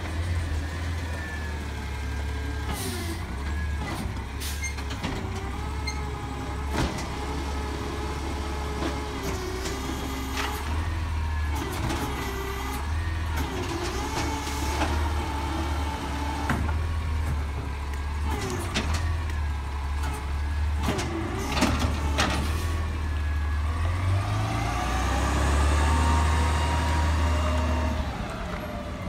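Natural-gas side-loading garbage truck idling while its hydraulics work and the engine's pitch rises and falls, with about ten clanks and bangs as a yard-waste cart is lifted and dumped into the hopper. Near the end the engine revs up and then down as the truck pulls away.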